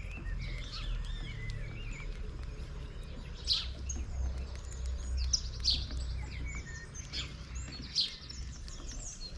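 Several small birds chirping and twittering, with sharp high chirps standing out several times, over a steady low rumble.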